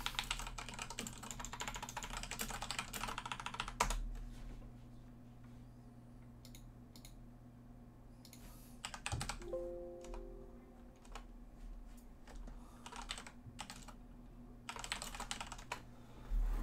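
Typing on a computer keyboard: a fast run of keystrokes for about four seconds, then scattered keystrokes and clicks.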